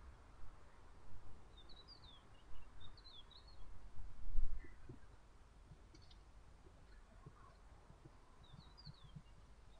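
Faint bird chirps in short clusters over low background noise, with scattered low thuds and a louder low rumble about four seconds in.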